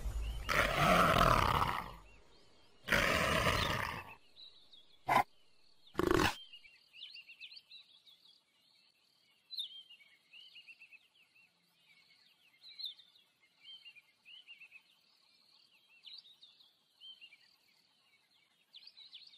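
Loud wild animal calls, two long ones in the first four seconds, then two short sharp calls about five and six seconds in, followed by faint high chirping.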